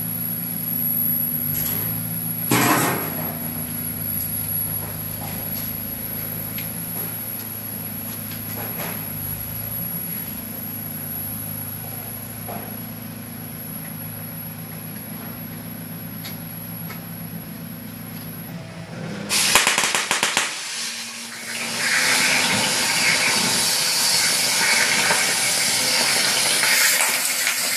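Steady low hum with a few clicks. About two-thirds of the way through, an oxy-fuel cutting torch comes on with a sudden loud burst and pop, then settles into a loud, steady hiss with crackle as its cutting jet cuts through steel plate.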